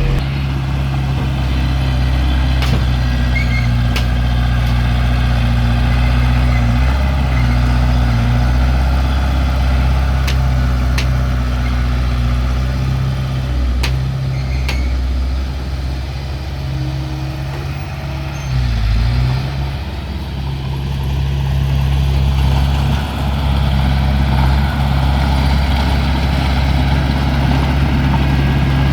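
Heavy-equipment diesel engine running steadily at a low, even pitch, its speed dipping briefly and recovering about two-thirds of the way in, with a few faint sharp clicks over it.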